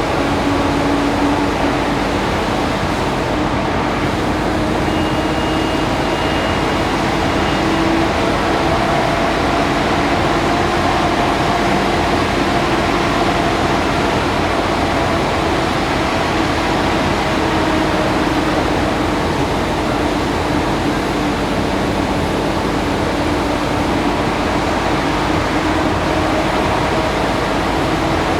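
Large car ferry's engines and machinery running steadily: a continuous drone with low hum tones over a rushing noise.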